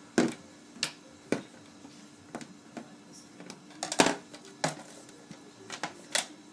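Small plastic pony figures being set down and shuffled on a tabletop: a string of irregular sharp clicks and taps, the loudest just after the start and at about four seconds.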